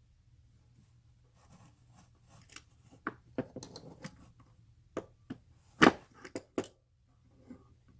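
Handling clatter and a run of sharp knocks from a 12-gauge shotshell hand-reloading tool as a spent hull is worked down on the decapping stem to punch out the old primer. The loudest knock comes a little before the end.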